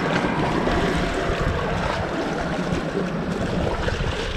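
Seawater washing and sloshing steadily around the jetty rocks at the waterline.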